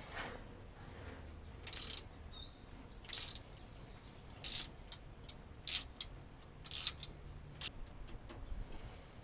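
Hand ratchet being worked in short strokes: about six brief bursts of clicking, a little over a second apart.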